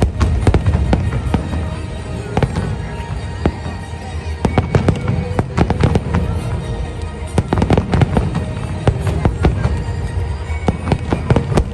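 Fireworks display: many sharp bangs and crackles going off in quick, irregular succession over a continuous low rumble.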